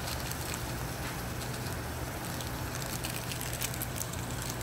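Pot of water at a rolling boil with a block of instant ramen noodles in it, bubbling and crackling steadily over a low hum. A few faint ticks come near the end as dried flakes are tipped in from the packet.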